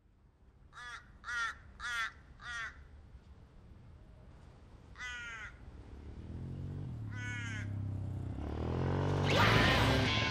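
A crow cawing four times in quick succession, then giving two longer drawn-out calls. Over the second half a dirt bike's engine approaches, climbing in pitch and loudness as it revs, loudest near the end.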